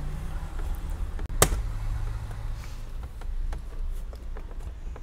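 Plastic clicks and one sharp knock about one and a half seconds in, from hands working the cabin air filter housing under the dashboard, over a steady low hum.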